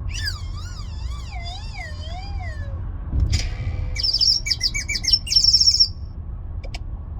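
Novelty 'funny' sound effects: a wobbling, warbling tone that slides downward over about three seconds, then a click and a quick run of high chirps lasting about two seconds.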